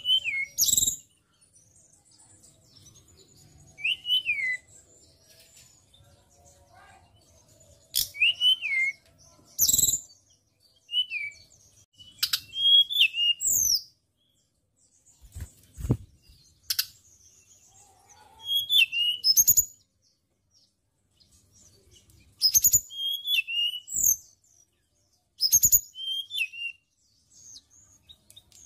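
Hill blue flycatcher (tledekan gunung) singing in short, separate phrases of high, sliding whistled notes with pauses between them. Sharp clicks or taps sound now and then among the phrases.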